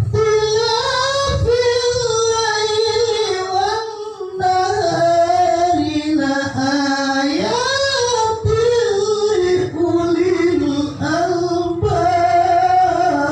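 Melodic Quran recitation (tilawah) by a qori: one voice chanting long, wavering phrases whose pitch glides up and down, with brief breaths between them.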